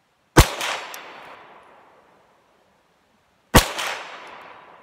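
Two shots from a Calico M100 pistol in .22 Long Rifle, about three seconds apart, each followed by a quick echo and a ringing tail that dies away over about a second and a half.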